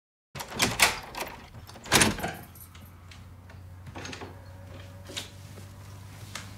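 Wooden door being handled: a quick clatter of knocks near the start, a louder bang about two seconds in, then a few faint clicks over a low steady hum.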